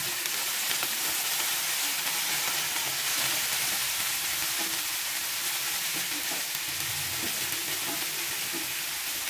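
Shredded cabbage and sliced chilies stir-frying in a hot wok: a steady sizzling hiss, with the wooden spatula stirring and tossing the vegetables.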